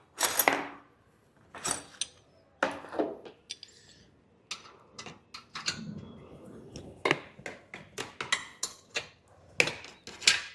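Hand tools clinking and knocking against a motorcycle's metal parts while it is being unbolted: a run of irregular sharp clicks and clanks, with the loudest just at the start and a quick cluster near the end.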